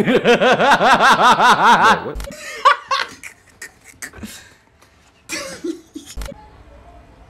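Loud, rapid laughter in a quick ha-ha-ha rhythm for about two seconds, trailing off into a few quieter chuckles and breaths.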